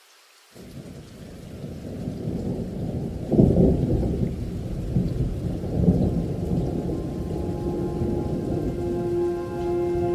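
Thunder-and-rain rumble opening a background music track: it starts suddenly about half a second in and swells. Steady held synth tones come in near the end.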